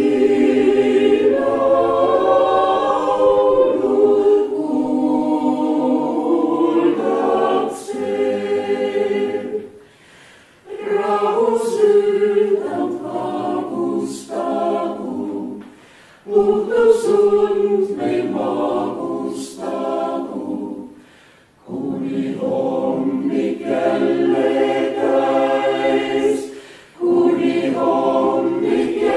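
Chamber choir singing in several parts, sustained chords in phrases broken by four short pauses for breath.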